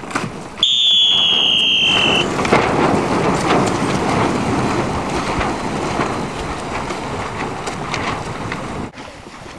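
A whistle blown once, a steady high note lasting about a second and a half, then loud wind noise on the microphone with rushing, splashing water that cuts off suddenly near the end.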